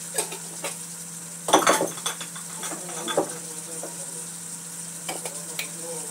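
Kitchen clinks and clatters of utensils against pans and containers, loudest in a cluster about a second and a half in, over a faint sizzle of chicken, onion and garlic frying in a wok.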